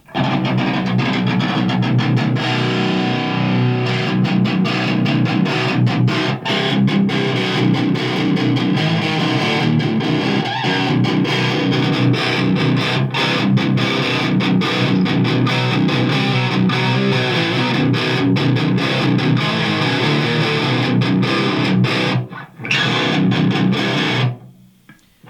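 Electric guitar played with heavy distortion through a guitar amplifier, riffing continuously, with the treble turned up for a more cutting tone and the distortion set only about halfway. The playing stops for a moment about 22 seconds in and stops again just before the end.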